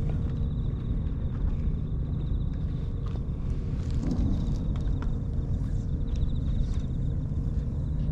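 Wind buffeting an outdoor microphone, a steady low rumble, with a few faint light ticks.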